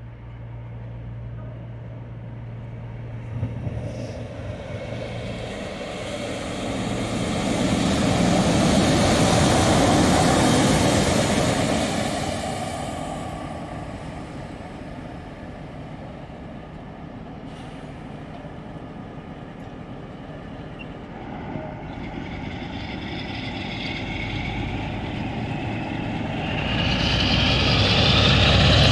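Class 47 diesel locomotive 47739 with its Sulzer V12 engine: the engine sound swells as it comes in and draws close around ten seconds in, settles quieter, then builds again near the end as the engine is opened up to pull away, with a rising whine on top.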